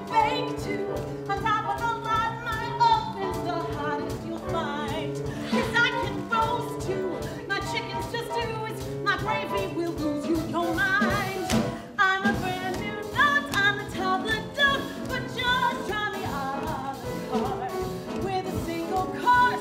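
A woman singing a brassy Broadway show tune over instrumental accompaniment.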